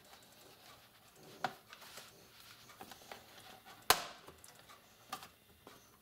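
Bottom cover of a Dell Inspiron 15 5578 laptop being pried off by hand: a few sharp clicks as its snap clips let go, the loudest about four seconds in.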